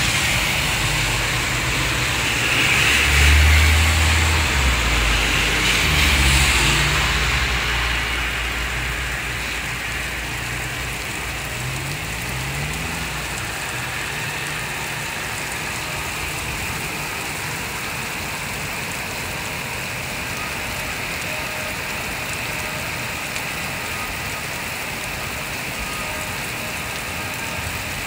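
Heavy rain falling steadily on roofs and a wet road. A motor vehicle passes, its engine loudest a few seconds in, then fades, leaving the rain alone.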